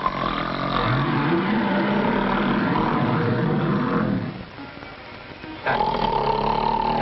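Elephant trumpeting and rumbling in two loud bouts, with a quieter gap between. The second bout is a high held call that falls away near the end.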